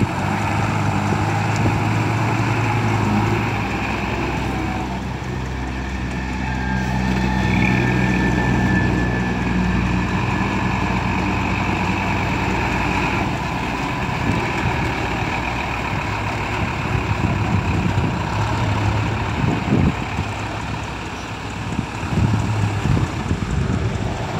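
Diesel engine of a Hino six-wheel dump truck running steadily as the loaded truck creeps over soft, muddy ground, the engine note strongest in the first half and fading somewhat after the middle.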